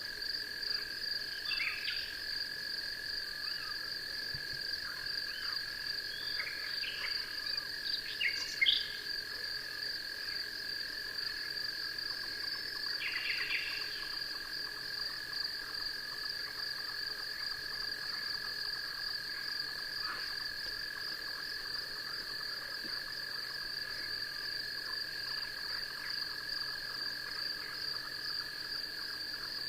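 Night insect chorus: a continuous, steady high trill with a second, lower steady trill beneath it. Short chirping calls break in over it a few times, the loudest about eight seconds in.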